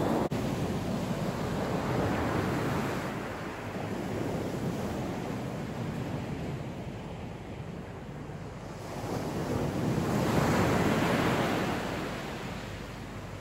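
Sea surf washing onto the beach in a steady rush, with one wave swelling louder about ten seconds in.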